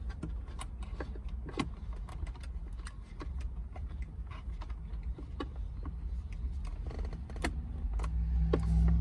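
Scattered light clicks and knocks of a wiring harness and plastic trim being handled and tucked into a car's centre console, over a steady low rumble that swells with a low hum near the end.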